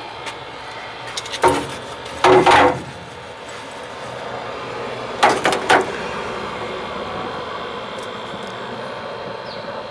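Clunks and knocks from a payphone being handled: a few about two seconds in, and three quick ones a little after five seconds, over a steady background hum.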